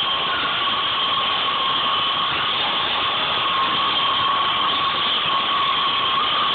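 Steady mechanical running noise with a steady high whine over a hiss, from a workshop machine running without pause.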